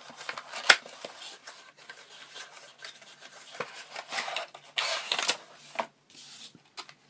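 A small penlight flashlight and its packaging being unpacked and handled: scattered clicks and rustling, the loudest a sharp click less than a second in, with longer rustles about five and six seconds in.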